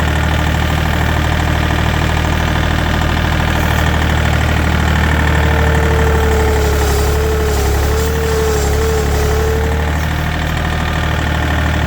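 Farm tractor engine running steadily at idle, with a wavering whine for about five seconds midway.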